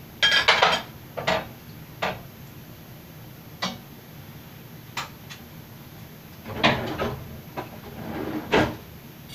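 Dishes, containers and utensils clattering as they are handled and set down on a kitchen counter and stovetop: a cluster of knocks and clinks in the first second, single knocks every second or so, then another cluster about two-thirds of the way in.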